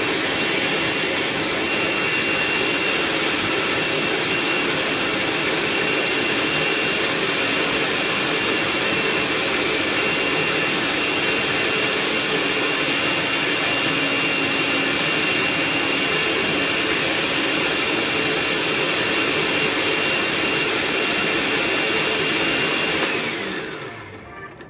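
Electric countertop blender running at a steady speed with a steady whine, blending ginger into a pulp. About a second before the end it is switched off and the motor winds down, its whine falling in pitch.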